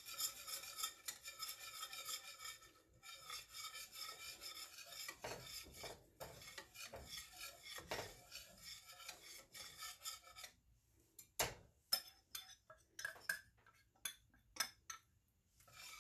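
Wire whisk scraping quickly around a stainless steel saucepan, stirring grated Parmesan into simmering cream. About ten seconds in the steady scraping gives way to separate sharp clicks and knocks of the whisk against the pan.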